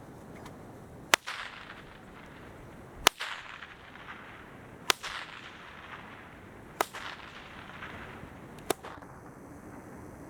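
Bullwhip cracked five times in a row, one sharp crack about every two seconds, each followed by a short echo.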